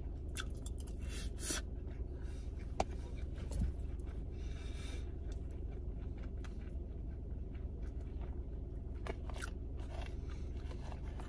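Mouth sounds of chewing spoonfuls of fried egg and rice, with a metal spoon now and then clicking and scraping in a plastic container. A steady low hum runs underneath.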